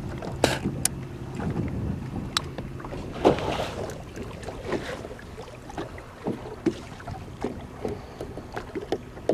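Scattered knocks and clicks in a small boat, over wind noise on the microphone. A faint low hum fades out over the first few seconds.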